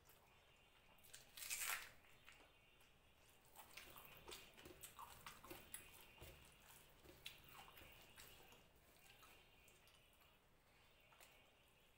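Faint wet clicks and squishes of fingers mashing and mixing rice with fish curry, along with chewing, and one short louder wet noise about a second and a half in.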